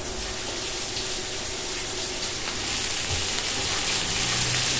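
Sliced porcini mushrooms sizzling in hot olive oil in a frying pan, stirred with a wooden spatula. The sizzle grows louder over the last couple of seconds.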